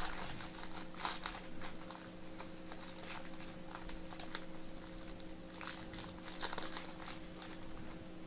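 Faint rustling and small clicks of trading-card boxes and packs being opened and handled, irregular throughout, over a steady low hum.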